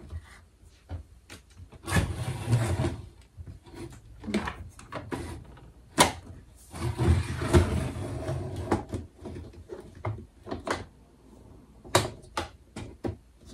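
Plastic Barbie Dream Closet playset being folded shut with its contents inside: rustling and clattering as the halves are handled and pushed together, knocks, a sharp click about six seconds in, and several clicks near the end as it is fastened closed.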